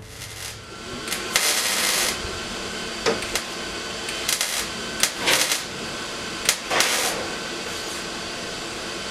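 Wire-feed welder laying a weld bead on a steel 55-gallon drum: a steady crackling arc hiss that starts about a second in, with a few short louder surges.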